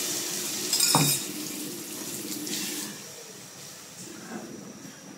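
Water sloshing and splashing in an aluminium pot as a metal ladle stirs freshly added water into curry paste, with a sharp metal clink of the ladle against the pot about a second in. The splashing dies down about three seconds in, leaving only faint scrapes and knocks of the ladle.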